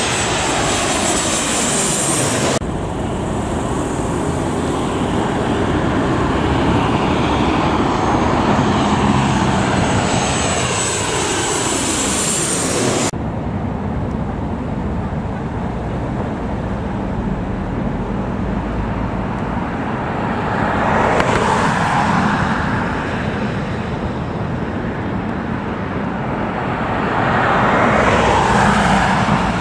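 An airliner passing low overhead, its engine sound falling steadily in pitch as it goes by. After that comes a steady rumble of road traffic, with two vehicles swelling past near the end.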